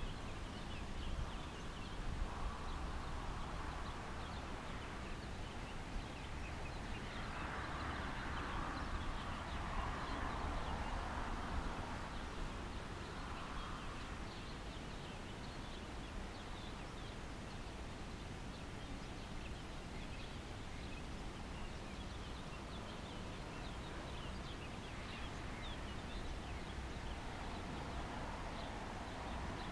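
Outdoor ambience: a steady low rumble and hiss with many faint short high chirps, and a soft swell of noise that rises and fades between about seven and thirteen seconds in.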